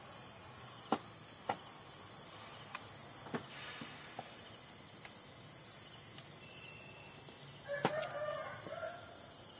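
Steady high-pitched drone of insects, with a few sharp clicks scattered through and a short chicken cluck near the end.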